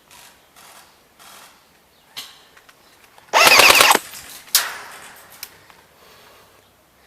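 Airsoft rifle firing a short full-auto burst, a rapid even rattle of about ten shots in under a second, followed half a second later by a single sharp crack. Soft rustling before it.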